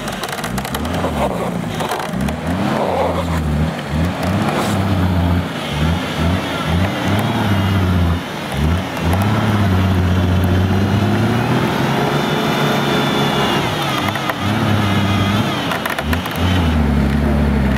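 Off-road 4x4's engine revving up and down again and again in short surges, then held at high revs for a few seconds about ten seconds in, with a higher whine riding over that longest rev.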